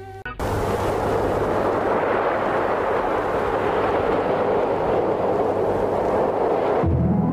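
A steady rushing roar of noise with no tune in it, starting abruptly and cutting off near the end, when piano music begins.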